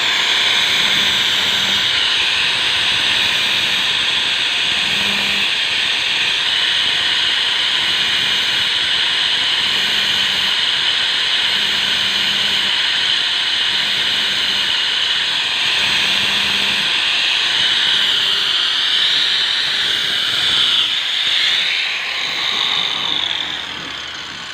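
A steady, loud hissing noise with a thin high whine, which shifts in pitch about three-quarters of the way through and then fades toward the end.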